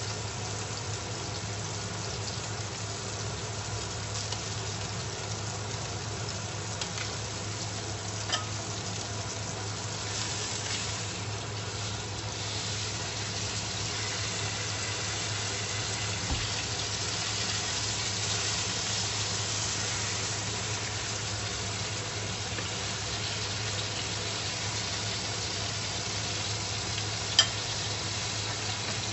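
Beef steak sizzling steadily in oil in a nonstick frying pan, turned over with a utensil about halfway through. A sharp click near the end.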